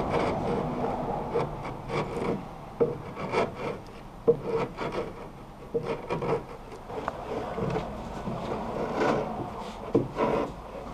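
Wood chisel held in both hands shaving hardened excess glue off the edges of plywood frames: a run of short, irregular scraping strokes.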